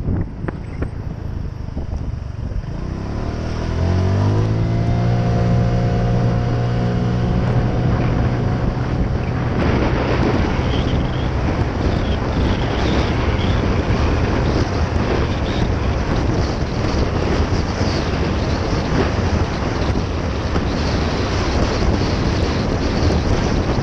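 Honda PCX 125 scooter's single-cylinder engine accelerating. Its pitch rises over a couple of seconds about three seconds in, then holds a steady drone. Wind buffeting on the microphone grows louder and covers the engine from about ten seconds in.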